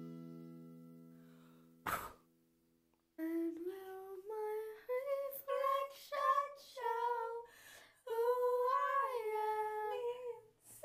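The last chord of an acoustic guitar song fades away, a single click comes about two seconds in, and there is a moment of dead silence. Then a woman sings alone with no accompaniment, in long held notes that slide up and down.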